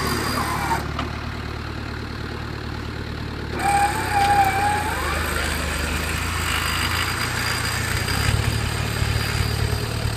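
Land Rover Perentie's Isuzu four-cylinder diesel engine running steadily, its note shifting about four seconds in and again near the eighth second. About four seconds in a brief wavering high whine sounds over it, rising at its end.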